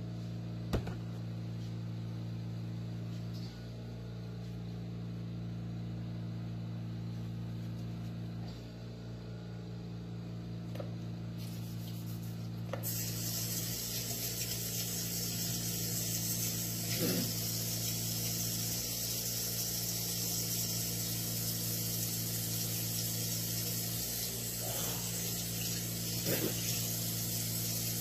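A kitchen faucet turned on about halfway through, water running steadily into the sink, over a steady low hum.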